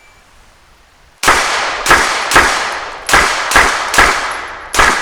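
Glock 34 Gen 5 9mm pistol firing a rapid string of shots: seven shots starting about a second in, in quick groups of three. Each shot is sharp and followed by a long echoing decay.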